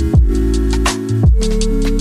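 Background electronic music with a heavy bass line, deep falling bass hits and a steady drum beat.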